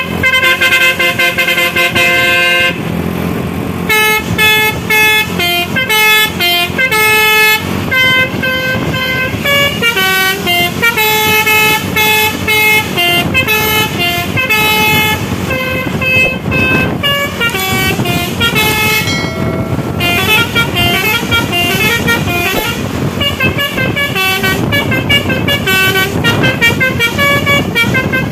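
Basuri musical air horn on a tour bus playing a continuous melody of short horn notes that change pitch rapidly, opening with a longer held chord. A steady vehicle rumble runs underneath.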